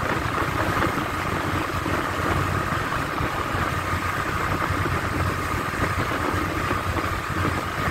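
Honda Biz's small single-cylinder engine running steadily in fourth gear at cruising speed, mixed with steady riding noise.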